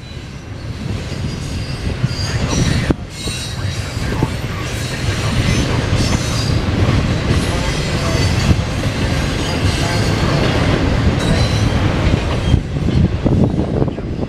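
Norfolk Southern intermodal freight train's cars rolling past: a steady rumble of steel wheels on rail, with high-pitched wheel squeal and rail clatter.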